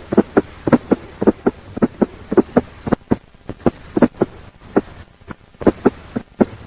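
Recorded heartbeat through a stethoscope with an S4 (atrial) gallop: short low thuds grouped into a rapid galloping rhythm, with a faint steady hum beneath.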